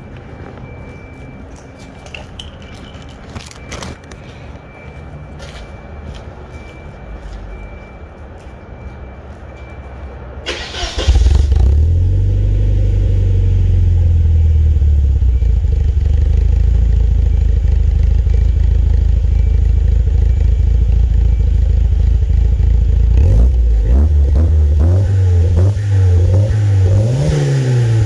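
Volvo 940 Turbo's four-cylinder engine heard at the tailpipe of its 3-inch turbo-back exhaust: after a quieter stretch with a few clicks, it cranks briefly and catches about ten seconds in, then runs at a loud, steady idle. In the last few seconds it is revved up and down several times.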